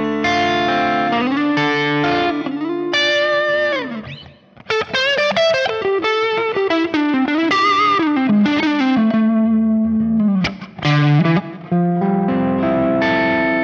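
Distorted electric guitar, a Telecaster with Dreamsongs Vintage '50s Tele pickups, played through an amp in a crunchy tone: chords and short phrases, then a single-note lead line with bends and vibrato, broken by brief pauses about four and ten seconds in.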